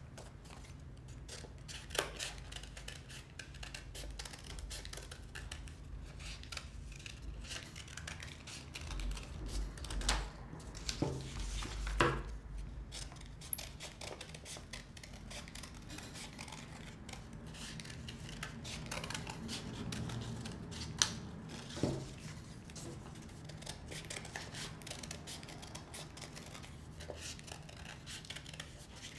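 Scissors snipping through folded paper, a long run of small cuts with a few sharper clicks between them.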